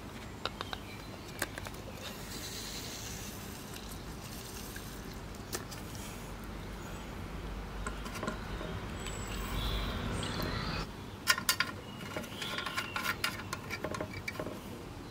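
Water being poured into the boiler of a Meccano MEC1 toy steam engine through its filler hole: a steady trickle that cuts off abruptly about eleven seconds in. It is followed by a run of small metallic clicks and taps as the filler cap is handled and refitted.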